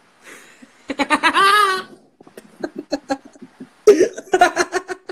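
Laughter: a drawn-out laugh about a second in, then choppy bursts of laughing, loudest near the end.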